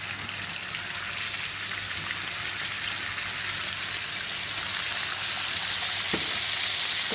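Turkey breasts frying in hot oil in a pan, a steady sizzling hiss, with one short knock about six seconds in.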